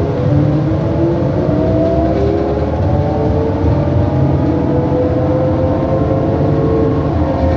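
2007 New Flyer E40LFR transit bus accelerating, heard from on board. A low drivetrain rumble runs under several whining tones that climb steadily in pitch as the bus gathers speed.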